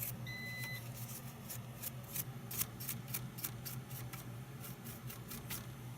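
A short electronic beep, about half a second long, near the start. It is followed by a run of irregular light clicks and taps from handling parts inside the CRT TV.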